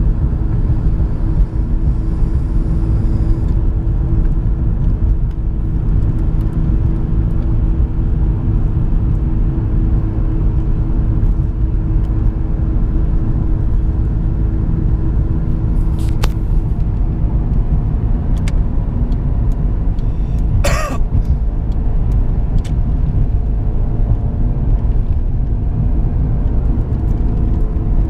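Car cabin noise while driving: steady low engine and road rumble heard from inside the car, with a brief sharp noise about three-quarters of the way through.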